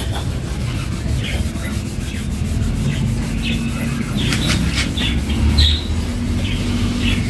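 Microfiber cloth rubbed in steady circles over waxed car paint, buffing off dried wax, with a continuous rubbing noise close to the microphone.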